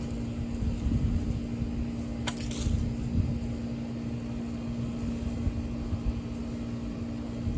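A steady machine hum holding one low tone, over a low rumble, with a single sharp click a little over two seconds in.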